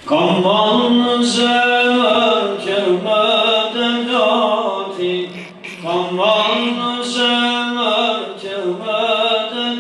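A man's voice singing an Albanian ilahi, an Islamic devotional hymn, unaccompanied. The notes are long and ornamented, in two long phrases with a short breath about halfway.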